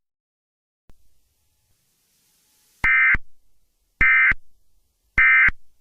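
Emergency Alert System end-of-message (EOM) code: three short, equal bursts of buzzing digital data tones about a second apart, starting about three seconds in. They mark the end of the alert.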